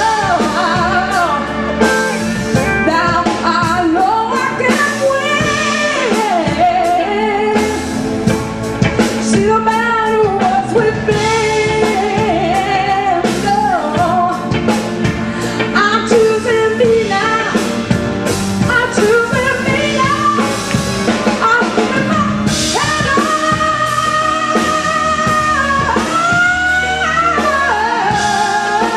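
Live soul band performance: a woman singing into a handheld microphone over tenor saxophone, electric guitar and drum kit.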